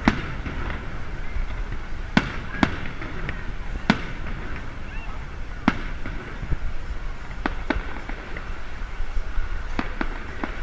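Aerial fireworks shells bursting overhead: about ten sharp bangs at uneven intervals, some in quick pairs, over a low steady rumble.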